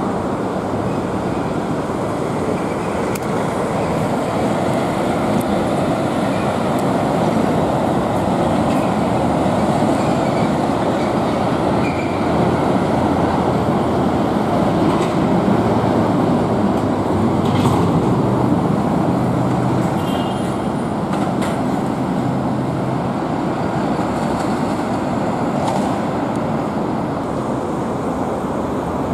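Steady rumble of city road traffic with no speech, growing somewhat louder in the middle.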